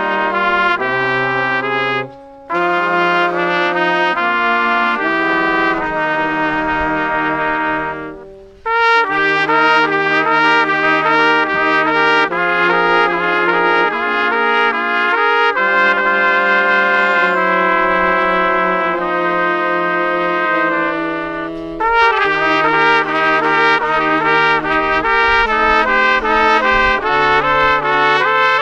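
A small street ensemble of three saxophones and three trumpets playing a tune in harmony, with held chords. The playing breaks off briefly about two seconds in and again about eight seconds in, and turns busier and more rhythmic near the end.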